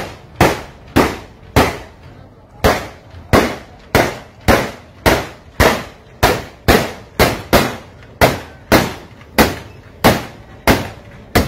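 Railway detonators (track fog signals) strapped to the rail going off one after another as a locomotive's wheels run over them: a long string of loud, sharp bangs, roughly two a second, with a brief gap about two seconds in. The bangs are an audible danger warning to the train driver.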